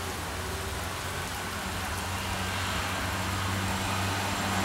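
Steady outdoor storm ambience: an even rushing hiss over a low steady hum, growing slightly louder toward the end.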